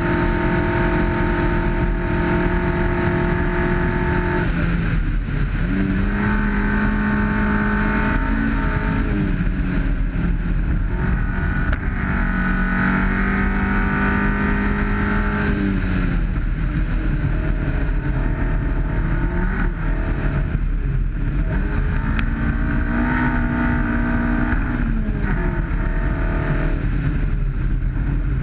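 A 1991 Honda CRX's twin-cam ZC four-cylinder engine working hard on a rally stage. It holds a high pitch for the first few seconds, then its pitch falls and climbs again several times as the driver lifts and pushes on. Under the engine runs a steady low rumble of the car on the dirt road.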